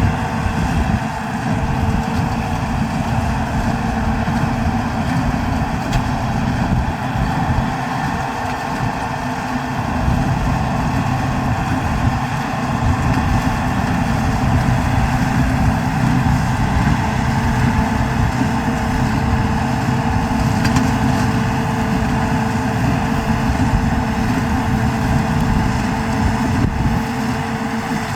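New Holland TD110D tractor's diesel engine running steadily under a constant load.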